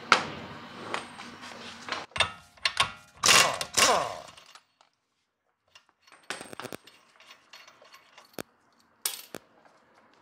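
Impact wrench on a 32mm socket breaking loose and spinning off a Tesla's rear axle nut, in two loud bursts about three to four seconds in. Sharp clicks and knocks of metal parts being handled come before and after.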